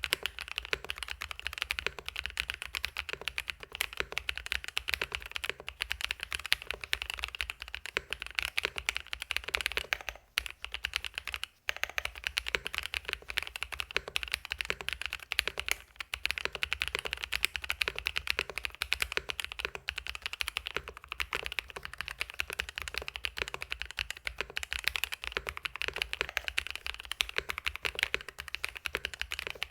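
Mechanical keyboard with fully lubed Grain Gold Lemon Cedar switches being typed on quickly and continuously, a steady stream of key clicks. The typing pauses briefly about ten seconds in.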